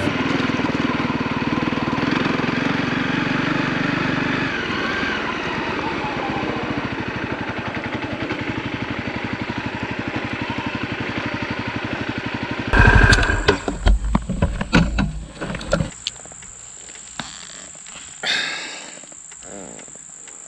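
Honda CRF250L dual-sport motorcycle engine running steadily on a ride. About 13 seconds in come a few seconds of loud, uneven bursts of noise. Then it goes quieter, with insects chirping steadily.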